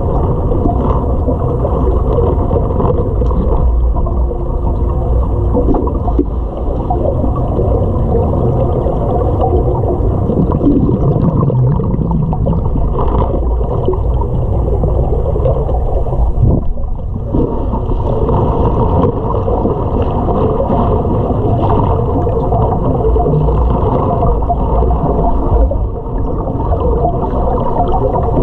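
Muffled underwater noise in a swimming pool: a steady low rumble with gurgling and bubbling, heard with the microphone underwater.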